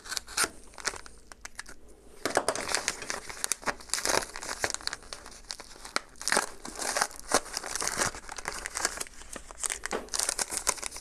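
Parcel packaging being torn open and crinkled by hand: irregular rustling with many sharp crackles and a few tearing sounds.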